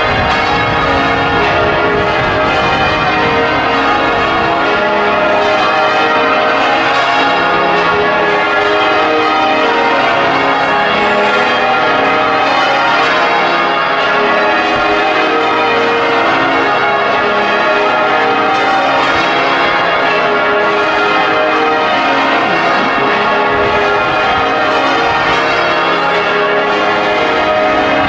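Change ringing on the heavy ring of 13 church bells (tenor 82 cwt, in A♭) in the cathedral tower, heard from outside: many bells struck in turn in a steady, unbroken stream of overlapping tones.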